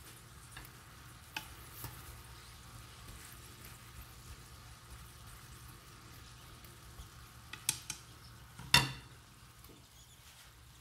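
Beef steak and green beans frying in butter in a nonstick pan, with a faint steady sizzle. A wooden spatula stirs the food and knocks against the pan a few times, the loudest knock about nine seconds in.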